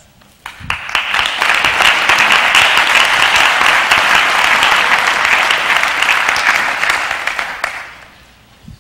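Audience applauding: the clapping builds up over the first second, holds steady, and dies away about eight seconds in.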